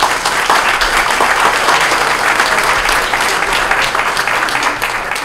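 Audience applauding, a steady, dense clapping that holds at one level throughout.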